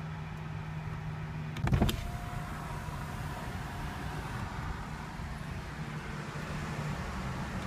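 Electric motor in the car whirring steadily after a sharp click, over a low steady hum: a power window or the power hardtop mechanism running.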